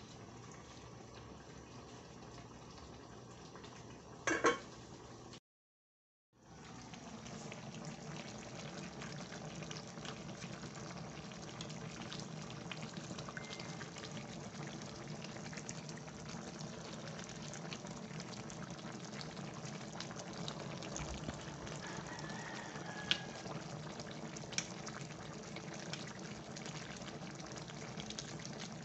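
Coconut milk bubbling at a simmer in an aluminium wok over a gas burner, a steady bubbling that grows louder after a short clatter about four seconds in and a brief dropout of about a second. A few light clicks of a metal ladle against the pan come later.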